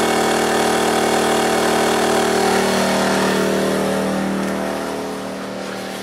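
Predator 2000-watt inverter generator's engine running steadily at high speed under a heavy load, at the limit of its output with its overload light on. The sound grows fainter over the last couple of seconds.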